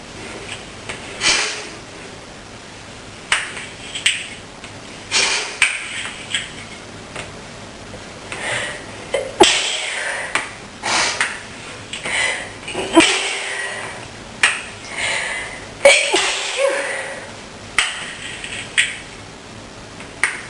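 A woman with a tickling, snuffly nose sniffing over and over in short hissy bursts, with three louder sudden sneezes about three seconds apart near the middle. Sharp little clicks and clinks of small objects come in between.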